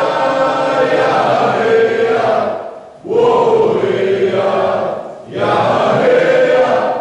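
Several voices chanting together in long held notes, in three phrases of a couple of seconds each with brief breaks between them.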